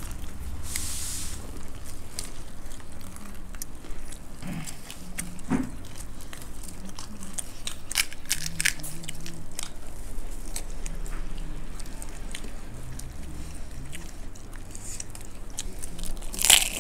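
Close-up chewing and crunching of dry puffed rice mixed with crisp fried sev, eaten by hand, with many small scattered crunches. Near the end comes one much louder crunch as a crisp puri shell is bitten.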